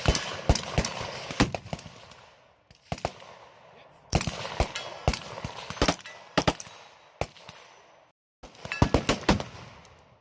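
Gunfire: many shots in quick, uneven succession, some in rapid strings, each trailing an echo. The sound cuts out completely for a moment about eight seconds in, then the shots resume.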